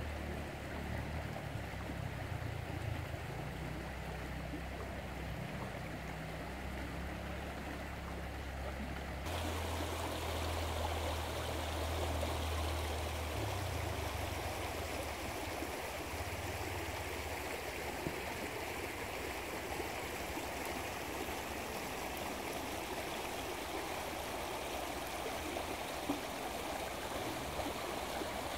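Shallow creek water running over a stony riffle, a steady rushing babble. For about the first nine seconds the water is quieter, with a low rumble underneath. The sound then changes suddenly to a louder, brighter rush.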